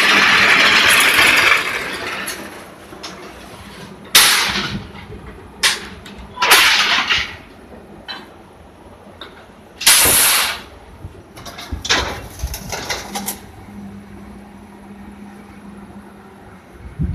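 Rebar flash butt welder: a loud sparking hiss that fades out about a second and a half in, then several short, sharp bursts of sparking a few seconds apart, over a steady low electrical hum.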